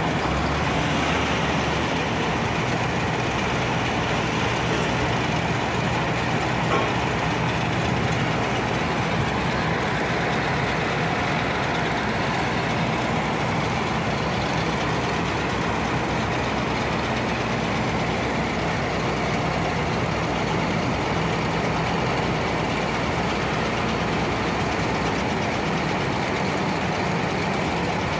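Dump truck's diesel engine running steadily with its tipper bed raised, over a steady rushing noise from bulk cargo pouring into a conveyor hopper and the belt conveyor running.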